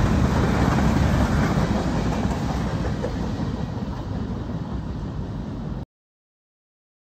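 CSX freight train's cars rolling past on the rails, a steady rumble that slowly fades as the train moves off, then cuts off abruptly about six seconds in.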